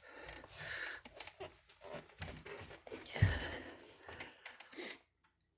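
Faint rustling and small clicks of handling, with a soft, deeper bump about three seconds in.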